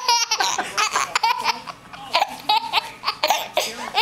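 A baby laughing in a run of short, high-pitched bursts.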